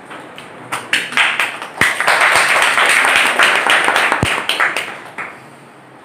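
Audience applauding. Scattered claps begin about a second in, fill out into steady applause, then thin out and stop about five seconds in.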